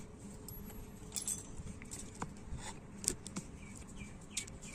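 Faint ambience with scattered small clicks as small metal electron-gun parts are handled and set down on a concrete floor. Near the end a bird starts chirping, a quick run of short repeated chirps.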